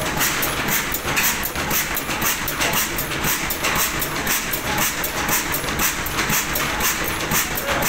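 Ruston Hornsby stationary diesel engine running steadily, with a rapid, even mechanical clatter from its moving parts.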